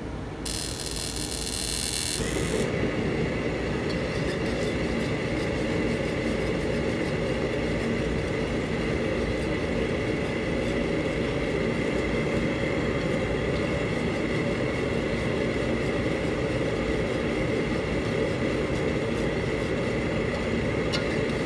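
Steady roar of a commercial kitchen gas range, stepping up louder about two seconds in after a brief high hiss, then holding steady.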